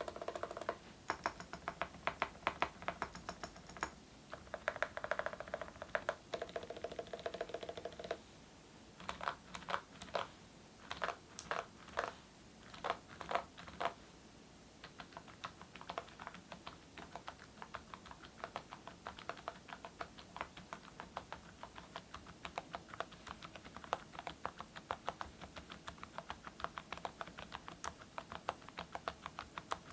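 Typing on a mechanical keyboard with full-metal Awekeys keycaps over silent switches. Fast runs of key presses at first, a stretch of separate keystrokes about two a second in the middle, then steady fast typing.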